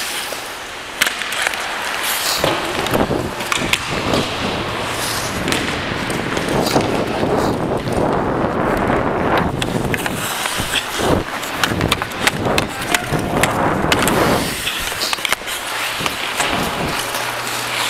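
Ice hockey skates carving and scraping on the ice, which picks up about two seconds in, with sharp clicks and cracks of sticks and puck throughout.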